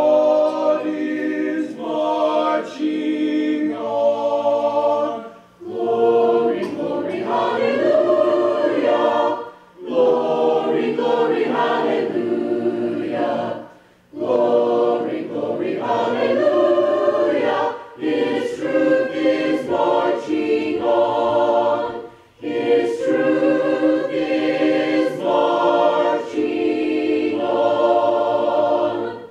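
A high school choir of mixed voices singing unaccompanied, in phrases of about four seconds with brief pauses for breath between them.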